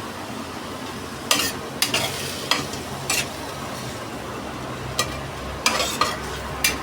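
Food sizzling in a frying pan as it is stirred, with a utensil repeatedly scraping and knocking against the pan.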